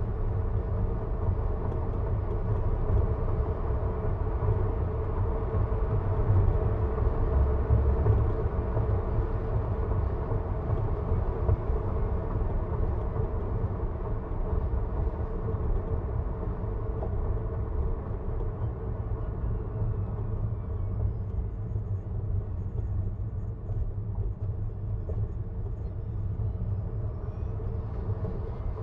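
Steady tyre and road noise with a low rumble from a Tesla Model 3 Performance driving along a paved road, with no engine note since the car is electric. It swells slightly a few seconds in and eases a little in the second half.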